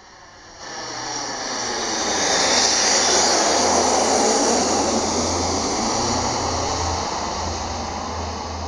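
An aircraft flying past overhead: its engine noise swells in about half a second in, peaks around three to four seconds and then slowly fades.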